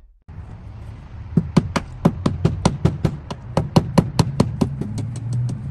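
Hammer tapping in a quick, even run of about twenty light blows, roughly six a second, starting about a second and a half in and stopping near the end.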